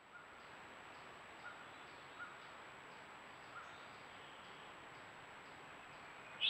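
Quiet woodland ambience with a steady hiss, a few faint scattered bird chirps and a faint high ticking about twice a second. A sharper, louder chirp comes at the very end.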